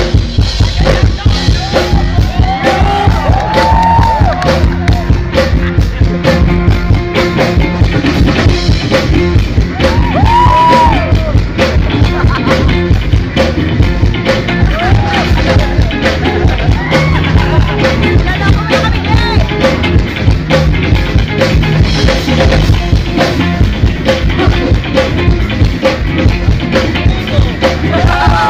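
A rock band playing live and loud: a steady drum beat, electric guitars and a singer's vocal lines, recorded from the audience.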